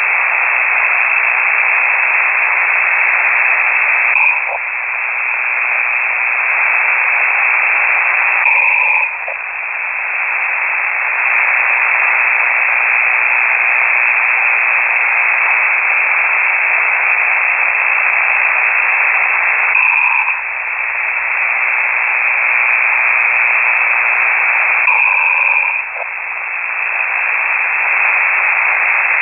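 Steady rushing radio hiss from a KiwiSDR shortwave receiver on single sideband, dropping briefly four times with a short beep-like tone at some of the dips.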